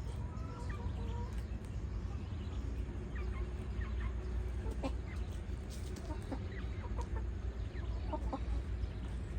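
Chickens clucking, many short scattered calls over a steady low rumble.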